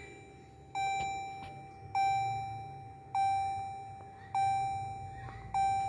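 Electronic warning chime dinging at a steady pace, about one ding every 1.2 seconds, five dings in all, each a single clear tone that fades out.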